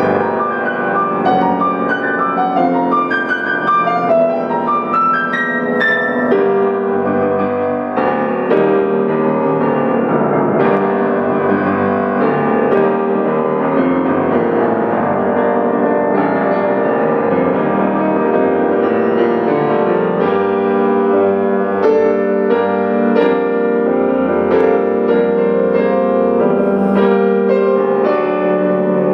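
Solo grand piano played continuously, many notes sounding together in a dense, flowing texture. More sharply struck notes come through in the last third.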